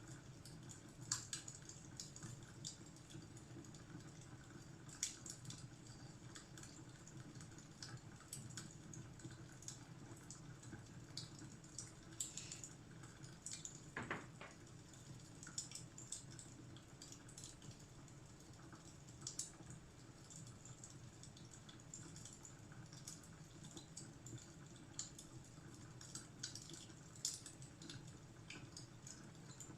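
Fireplace fire crackling faintly: irregular small pops and snaps over a low steady rumble.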